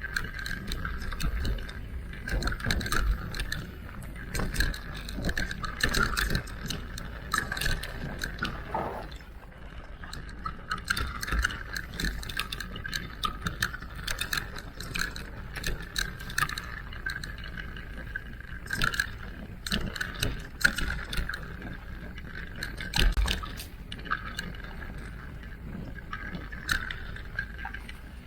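Electric mountain bike being ridden over a rough trail: a steady, wavering whine runs throughout, broken by frequent sharp clicks and rattles from the bike, over a low rumble.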